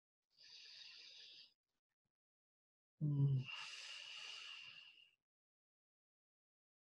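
A woman breathing close to the microphone: a soft in-breath, then about three seconds in a brief low hum that runs into a longer sighing out-breath.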